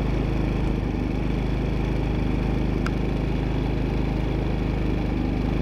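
Generac iQ3500 inverter generator's single-cylinder engine running steadily with no load on it, shortly after a pull start.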